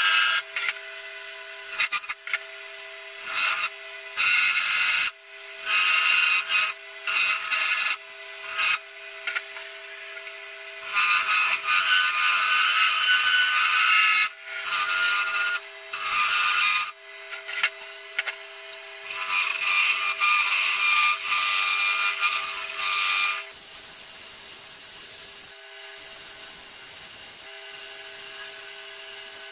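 Benchtop wood lathe running with a steady hum while a turning gouge cuts a spinning wooden spindle, giving repeated stretches of loud scraping and shaving noise. Near the end the cutting gives way to a softer, steady hiss of sandpaper held against the turning wood.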